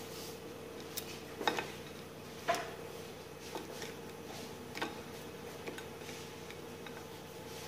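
Faint, scattered clicks and taps, about six in all, as freezer-chilled potato sticks are handled in a glass bowl, over a steady faint hum.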